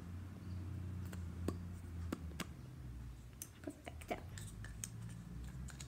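A dozen or so small, scattered clicks and taps, beginning about a second in, over a low steady hum. They come from handling lipstick and makeup items close to the microphone.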